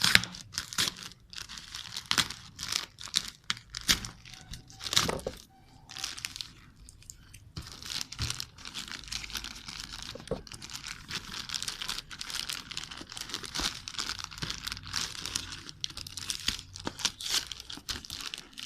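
Plastic packaging being crinkled and torn open by hand, in a run of short crackles with a brief lull near the middle.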